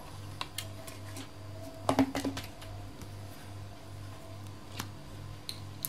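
Faint clicks and taps of a phone's bare mid-frame and a glue tube being handled on a hard tabletop, with a louder short clatter about two seconds in, over a steady low hum.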